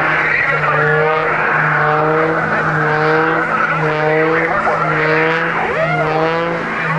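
Aerobatic biplane's piston engine and propeller running hard, the pitch rising and falling in repeated waves as the plane tumbles through its manoeuvres.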